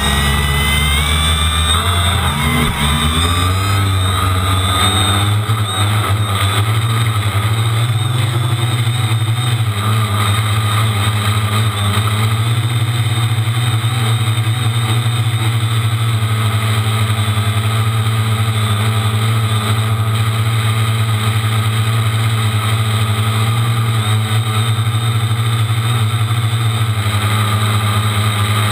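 Home-built quadcopter's electric motors and propellers, heard up close from the GoPro mounted on it. A whine rises in pitch over the first few seconds as the motors spool up and it lifts off. Then comes a steady buzz of several tones while it flies.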